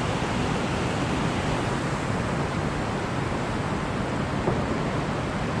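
Steady rushing of fast creek water churning through whitewater rapids.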